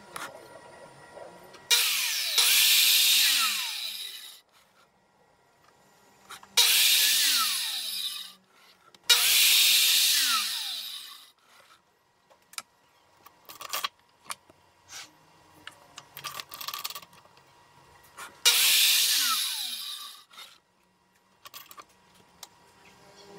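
Bosch circular saw on a crosscut station cutting through an MDF test board four times, each cut starting suddenly and the motor's pitch falling as it spins down afterwards. These are the successive edge trims of the five-cut test for squaring the fence. Between cuts come light knocks and clicks as the board is turned and set against the fence.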